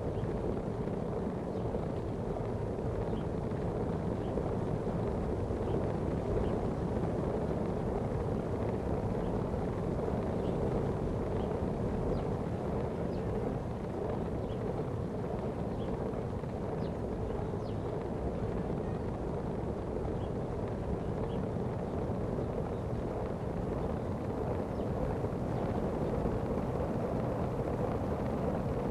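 Steady rumbling noise of wind and road while riding, with faint light ticks about once a second.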